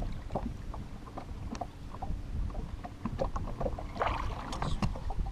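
Water lapping against a bass boat's hull, with a low wind rumble on the microphone and scattered light ticks and taps. A louder, noisier flurry comes about four seconds in.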